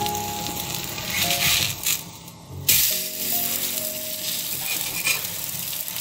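Sooji cheela sizzling in a little oil on a hot tava over a high gas flame, a steady hiss with a short break about two seconds in.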